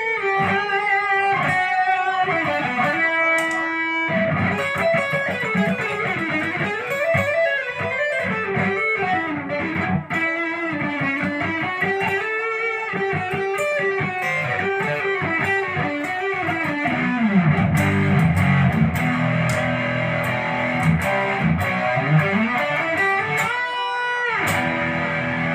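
Les Paul-style electric guitar played lead through an amp, with many string bends sliding notes up and back down. About two-thirds of the way through it drops to lower, fuller notes, then ends on a high bent note.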